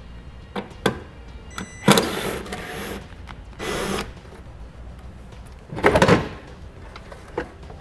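A cordless driver with a T20 Torx bit runs twice briefly, about two seconds in and again near four seconds, backing out the taillight screws. About six seconds in there is a short, loud plastic clack as the taillight housing is pulled free.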